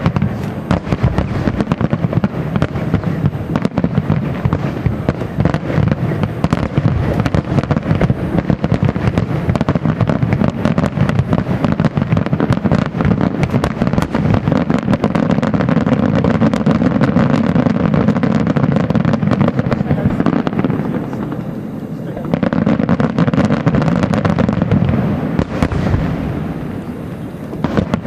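Aerial fireworks shells bursting in a dense, continuous barrage, many bangs a second with crackling. It thins briefly about three-quarters of the way through, then builds again.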